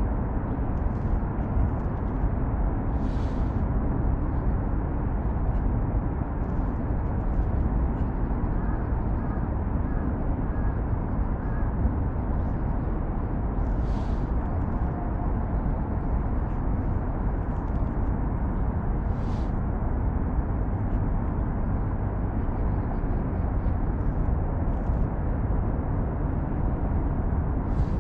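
Steady low rumble of distant city traffic around the Seongsan Bridge carrying across the Han River, with a few faint short pips about ten seconds in.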